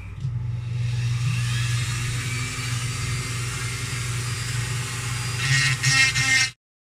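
A Dremel rotary tool spins up and runs steadily, its bit grinding and smoothing a small wooden carving with a high whirring hiss over the motor hum. The grinding gets louder near the end, then the sound cuts off suddenly.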